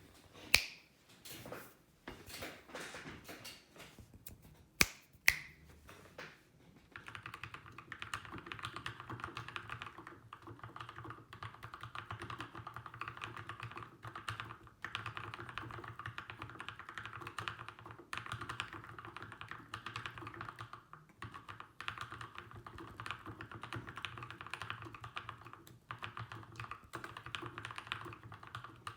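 Keychron K2 mechanical keyboard with lubed and filmed Gateron Black Ink V2 linear switches, a foam-modded case and band-aid-modded stabilisers, being typed on. Scattered single keystrokes, three of them much louder clacks, give way about seven seconds in to steady fast typing.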